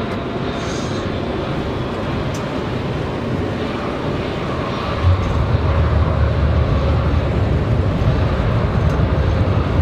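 Cockpit noise of a Boeing 777F rolling out after touchdown: a steady rush of engine and airflow noise, with a deeper rumble building up about five seconds in.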